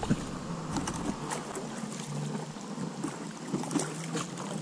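Water lapping with a few light splashes and knocks around a small inflatable PVC boat drifting on a river.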